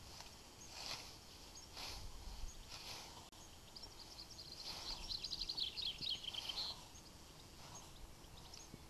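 Scythe blade swishing through grass in repeated strokes, about one a second. A bird sings a rapid trill of chirps in the middle, the loudest sound, with a few faint bird chirps around it.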